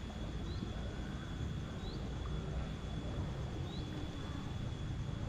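Outdoor pond-side ambience: a bird gives a short, high rising chirp about every two seconds over a steady low rumble and a thin, steady high-pitched tone.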